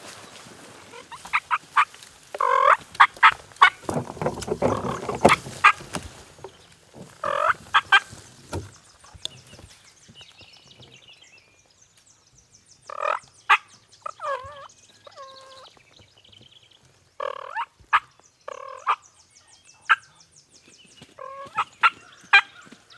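Wild turkey toms gobbling loudly and repeatedly, a gobble every few seconds.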